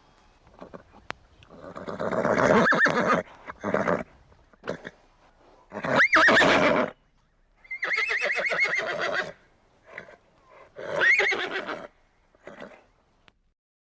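Horses neighing: a series of about four loud whinnies, each a second or so long with a high, shaking pitch, separated by short quiet gaps.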